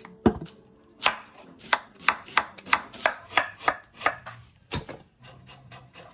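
Kitchen knife slicing a peeled Korean radish into matchsticks on a wooden cutting board: a dull thump first, then about ten crisp knife strokes on the board, roughly three a second, stopping shortly before the end.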